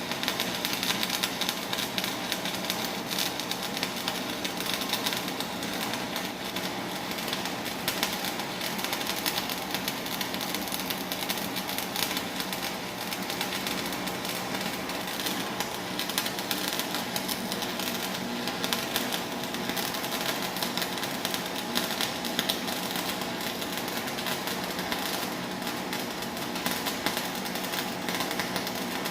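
Stick-welding arc from a 6013 electrode laying a fillet weld: a steady, dense crackle and sizzle that starts suddenly as the arc is struck, over a steady low hum.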